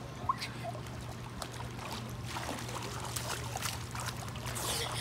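Swimming-pool water splashing and lapping as a child swims, the small splashes getting busier in the second half, over a low steady hum.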